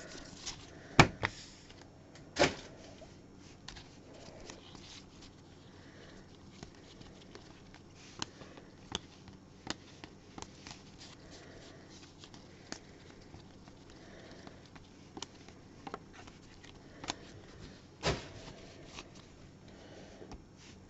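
Trading cards being handled by gloved hands: scattered light clicks and taps as cards are flicked through and set down on the table, with a few louder knocks about a second in, at about two and a half seconds, and near the end.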